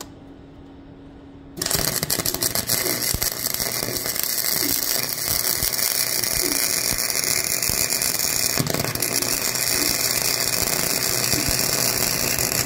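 Harbor Freight Flux 125 flux-core wire-feed welder, set to max, welding a nut onto a broken exhaust stud in an LS cylinder head. The arc starts about a second and a half in, crackles steadily and stops abruptly near the end.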